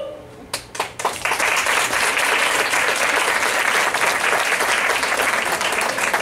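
Theatre audience applauding after a musical number: a few scattered claps, then full applause that thins out near the end.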